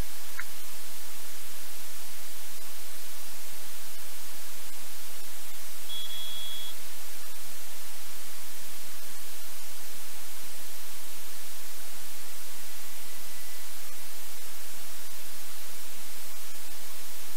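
Steady loud hiss of static, with one short high beep about six seconds in.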